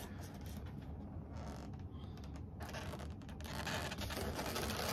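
Inflated latex modelling balloons of a balloon-sculpture elephant rubbing and squeaking against each other and the hands holding them as it is turned. The handling noise gets busier about halfway through.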